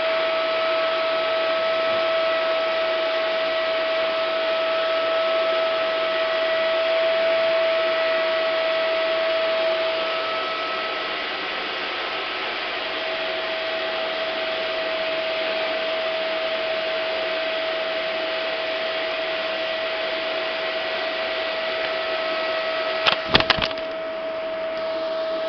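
Vacuum cleaner running steadily, with a constant whine over its rushing air, used on a cat's fur. About eleven seconds in it turns briefly unsteady and a little quieter. Near the end there are three quick sharp clicks, the loudest sounds here.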